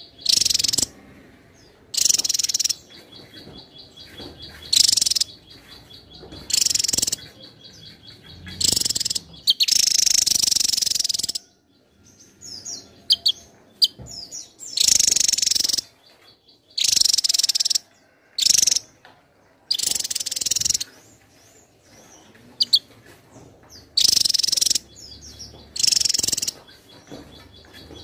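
Javan tesia singing: repeated short bursts of rapid, high-pitched notes, each about half a second to a second long, coming roughly every two seconds, with one longer phrase about ten seconds in.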